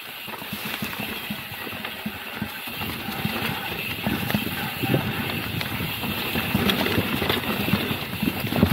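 Mountain bike riding over a rough, loose trail: steady rolling noise from the tyres with irregular rattles and knocks from the bike over the bumps.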